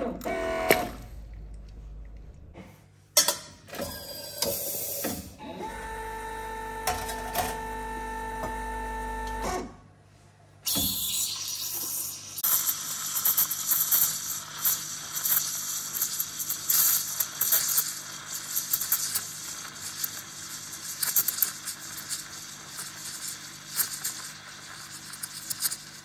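An espresso machine's pump hum cuts off right at the start. Clattering handling and a second steady machine hum follow. From about 11 seconds on, the steam wand hisses into milk in a stainless steel pitcher, a loud even hiss full of rapid crackles as air is drawn into the milk while it is frothed.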